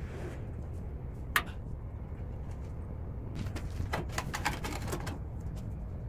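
Metal parts of an old road-cutting machine's engine being handled: one sharp click about a second and a half in, then a quick run of small metallic clicks and taps near the end, over a steady low hum.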